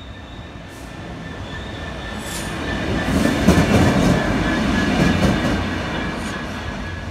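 GBRf Class 66 diesel locomotive 66780, an EMD two-stroke V12, approaching and passing over the level crossing. Its engine and wheel noise build to a peak about three to five seconds in, then fade. A steady alarm tone sounds behind it.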